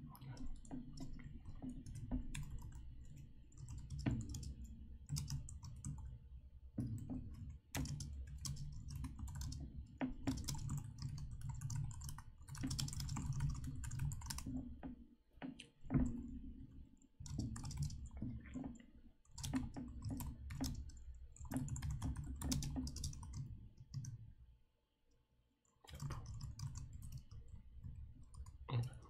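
Typing on a computer keyboard: fast runs of keystrokes with short breaks, and one longer pause of about a second and a half near the end.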